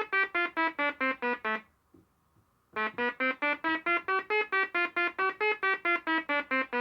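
Homemade synthesizer stepped by a shift-register sequencer, playing short, even, buzzy notes about six a second in a looping pitch pattern. The notes stop for about a second near the start, with a faint click in the gap, then start again.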